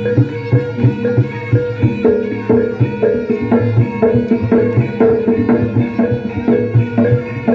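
Javanese gamelan music accompanying a barongan dance: kendang hand-drum strokes about twice a second over ringing pitched metallophone and gong tones.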